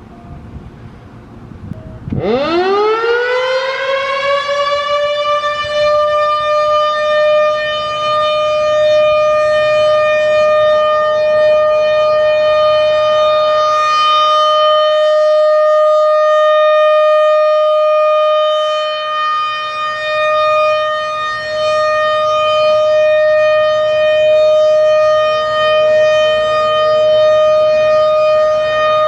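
American Signal RM-130 outdoor warning siren sounding a full-alert test. It winds up from about two seconds in, its pitch sweeping up fast and leveling off, then holds one steady, loud tone with slight swells in level.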